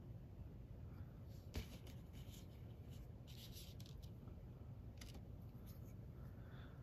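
Faint rustling and light handling sounds of small plastic models and paper on a work surface, with one sharp little click about one and a half seconds in.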